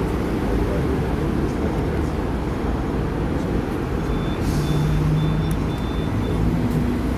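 Steady low rumble of a Hong Kong tram running, with a short run of about five high-pitched beeps about four seconds in.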